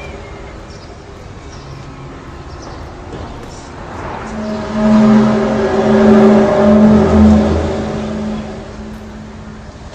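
A low, droning, horn-like tone holding several steady pitches at once, swelling loudly about four seconds in and fading near the end: one of the widely reported 'strange sounds' of unknown origin.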